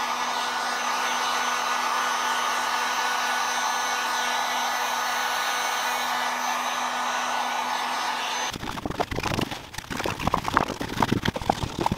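Heat gun blowing steadily with a constant motor hum, melting rubbed-on wax into the G1000 fabric of Fjallraven Keb trousers. It cuts off suddenly about eight and a half seconds in, followed by rustling and light knocks as the fabric is handled.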